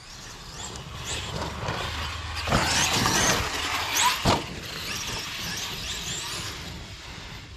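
Arrma Kraton 8S RC monster truck running across grass, its brushless motor whining up and down in pitch as the throttle comes on and off. Two sharp thumps about two and a half and four seconds in.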